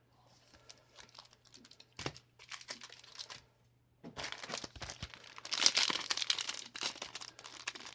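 Foil trading-card booster pack wrapper being handled and opened: light clicks and rustles at first, then dense crinkling from about four seconds in, loudest near the middle.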